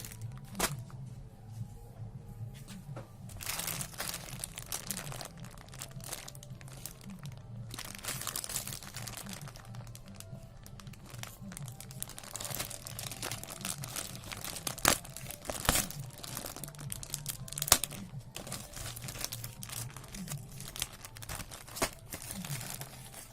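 Plastic packaging crinkling and rustling as it is handled, in repeated crackly stretches with a few sharper clicks, over quiet background music.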